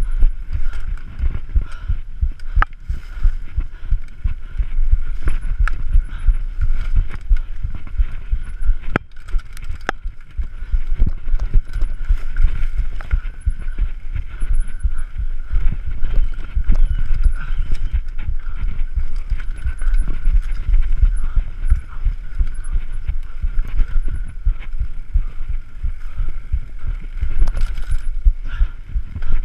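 Mountain bike rattling down a rough dirt singletrack: tyres over dirt and roots with a dense low rumble and many sharp knocks and clatters from the bike.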